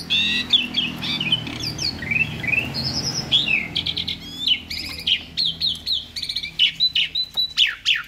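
Young caged starling (jalak) singing 'gacor': a fast, varied, unbroken run of chirps and whistles, with some notes sweeping up and others down.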